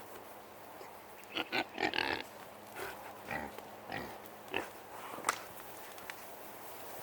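Hogs making a series of short calls: a quick cluster a little over a second in, then single calls about every half second, ending with a sharper one about five seconds in.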